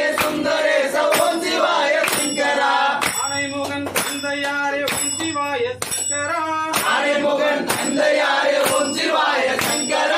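A group singing a devotional chant together, kept in time by a steady ringing metallic beat about every three-quarters of a second.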